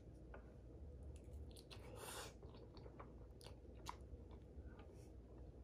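Faint chewing of a mouthful of lasagna, with small wet mouth clicks.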